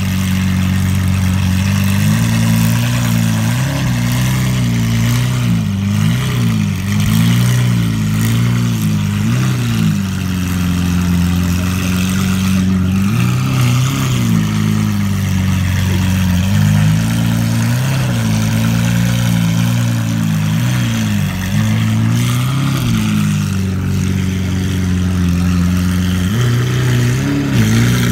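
Lamborghini Aventador SVJ's V12 idling at low speed, with several short, light throttle blips that lift the pitch and let it fall back. The engine note sits a little higher near the end.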